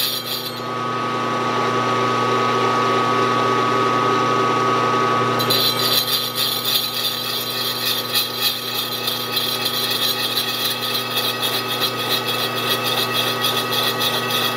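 Milling machine running a small slotting cutter with some teeth missing through a brass part: a steady motor and spindle hum with a fast, gritty cutting chatter. The chatter drops away about half a second in and comes back about five and a half seconds in.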